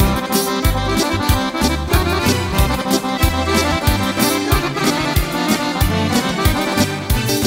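Instrumental intro of a Balkan folk-pop song: an accordion melody over a steady drum beat and bass.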